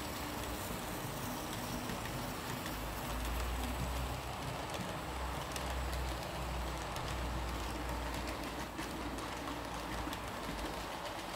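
HO-scale model train of passenger cars rolling along the track: a steady low rumble of small metal wheels on rail, with light clicks that grow more frequent in the second half.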